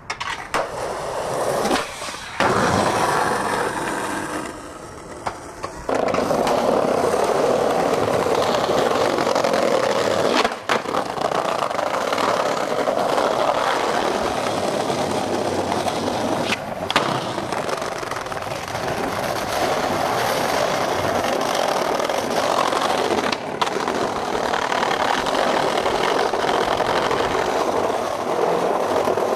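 Skateboard wheels rolling over brick and concrete sidewalk, a steady rolling noise that breaks off and starts again several times, with a few sharp knocks.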